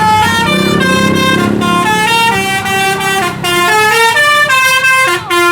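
A bus's Basuri telolet horn, a multi-tone musical horn, playing a loud stepping melody with a new note every fraction of a second and a short downward slide near the end. A low engine rumble runs underneath.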